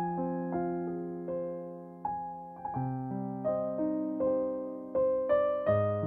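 Background music: slow, gentle solo piano, single notes struck about twice a second and left to ring and fade, with deeper chords joining about three seconds in and again near the end.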